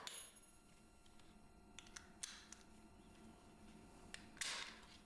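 Near silence broken by a few faint clicks and two short rustles: the snap-lock hooks of the wheelchair tie-down straps being unclipped and the webbing pulled off the wheelchair frame.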